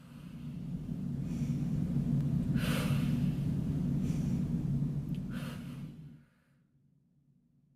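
Four forceful breaths about a second and a half apart over a steady low rumble, the paced breathing of the Pilates Hundred; the rumble and breaths stop about six seconds in.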